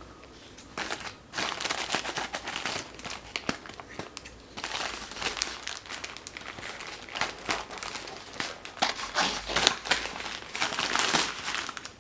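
Packaging crinkling and rustling as a parcel is unwrapped by hand, in scattered crackles at first, then thicker from about four seconds in.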